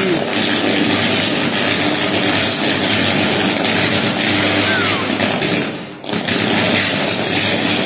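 Loud, steady buzzing noise of a pole-mounted electrical transformer burning and arcing, dropping briefly about six seconds in before it comes back.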